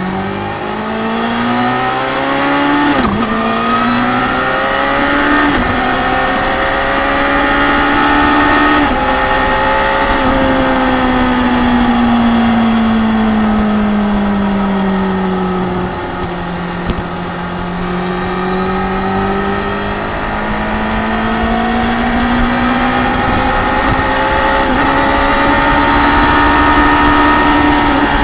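Suzuki GSX-R 750 inline-four through an Akrapovic slip-on exhaust, ridden on the road: it accelerates through the gears with quick shift drops about 3, 5 and 9 seconds in, eases off into a slow fall in revs, holds steady, then pulls up through the revs again near the end.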